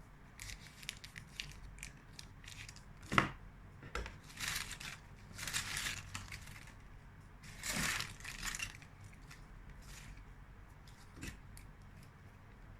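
Crinkling and tearing of a chocolate bonbon's wrapper being unwrapped close up, in a run of crisp crackles with a sharp click about three seconds in.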